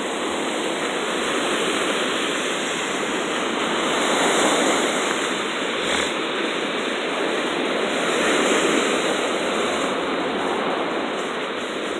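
Small waves breaking and washing up over wet sand, a steady rush of surf that swells louder about four seconds in and again a little past eight seconds.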